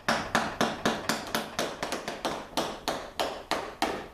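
Small hammer tapping tacks into a canoe's cedar planking, sharp blows in a quick steady rhythm of about four a second.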